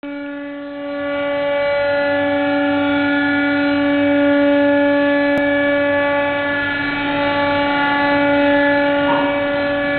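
Glass cutting table's tilting loading arm lowering, its drive giving a loud, steady, constant-pitch hum that grows louder about a second in.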